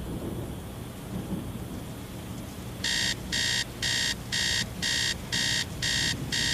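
An electronic wake-up alarm beeping, starting about three seconds in: short high beeps about two a second, eight of them, carrying on steadily. Before it there is a low rumbling hiss.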